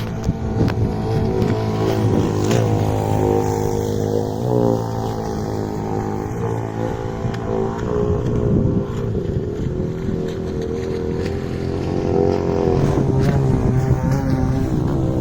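Petrol engine of a radio-controlled model boat running on the water, its pitch rising and falling as the throttle is opened and eased off.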